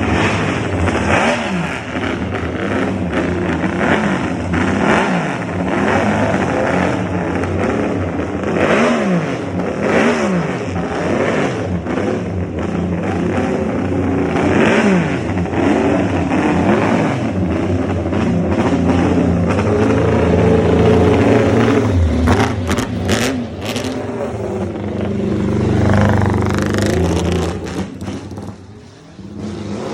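Motorcycle engine being revved again and again, its pitch rising and falling in quick blips, with a few sharp cracks about three-quarters of the way through; the sound falls away near the end.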